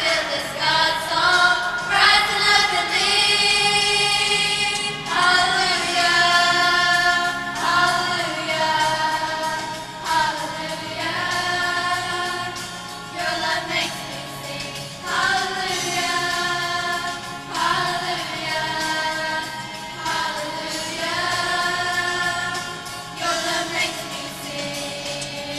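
A school choir singing a seasonal song in sustained phrases, the voices holding notes of a second or more between changes.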